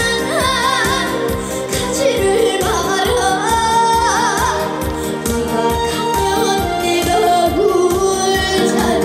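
A female trot singer singing with a wide vibrato over a backing track with a steady beat.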